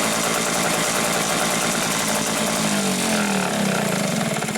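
Hangkai 6 hp two-stroke outboard motor running steadily after a rebuild, sounding smooth with no knock from the connecting-rod bearing. About three seconds in its pitch drops as it slows, and near the end it stops.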